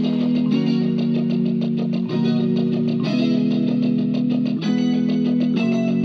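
Guitar-led instrumental music played through a JBL Flip 5 portable Bluetooth speaker. Sustained chords change every second or two over a fast, steady ticking beat.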